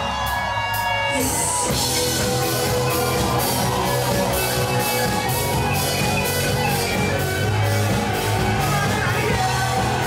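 Rock band playing live at full volume: electric guitars and drums with a singer. A held chord opens, then a cymbal crash about a second in brings in a steady drum beat.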